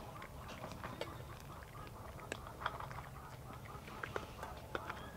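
Cats crunching dry kibble from a metal bowl: a faint, irregular run of small crunches and clicks.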